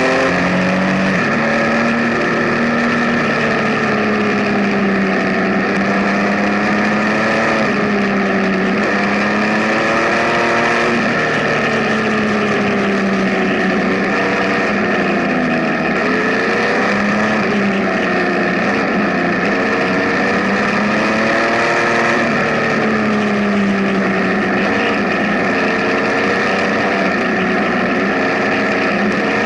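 Benelli TNT 1130 Café Racer's inline three-cylinder engine under way, its pitch rising and falling repeatedly as the revs climb and drop, over a steady rush of wind noise.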